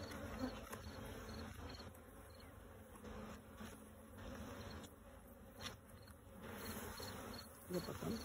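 Honeybee colony buzzing over the open frames of a hive: a steady, faint hum.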